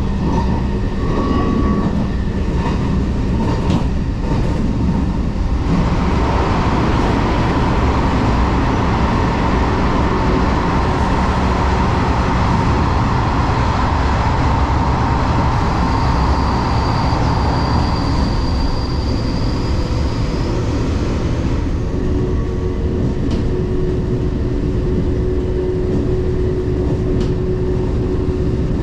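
JNR 381 series tilting electric train running at speed, heard inside the car by the door: a steady low rumble of wheels on rail and running gear. A louder rushing noise swells about six seconds in and fades a little after twenty seconds, with a thin high whine in the middle of it. A steady hum follows near the end.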